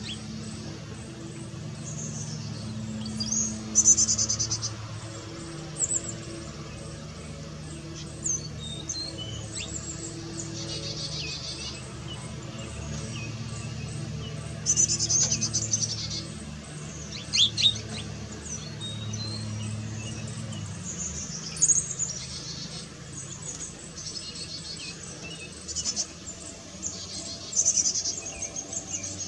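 Chickadees calling: repeated bursts of high, thin chirps and buzzy, rapidly pulsed notes, over a low steady hum.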